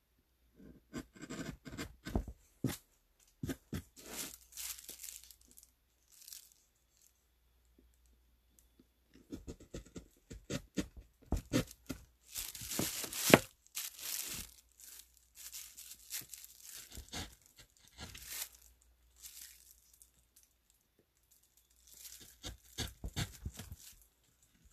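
A hand-held woodcut carving tool cutting into a woodblock in short scraping, crackling strokes, in irregular bursts with a quiet pause of a few seconds near the middle.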